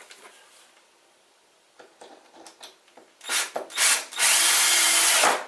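Electric drill driving a screw into wood: a couple of short bursts, then a steady run of about a second that stops abruptly near the end.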